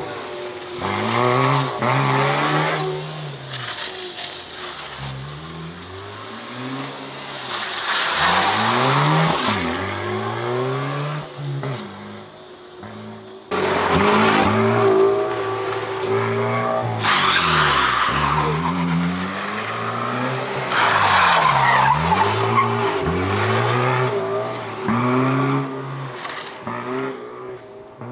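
Ford Puma 1.7's four-cylinder engine driven hard, its revs rising and falling over and over through tight turns, with tyres squealing. The level jumps suddenly about halfway through.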